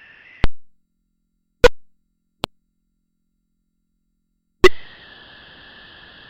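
Sharp percussive hits, three loud ones and one small one, each dying away within a fraction of a second. A faint steady hiss cuts out at the first hit and comes back with the last.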